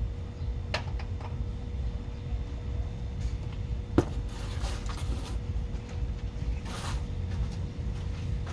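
A car engine running with a faint steady whine, broken by a few sharp clicks and knocks and brief rustling.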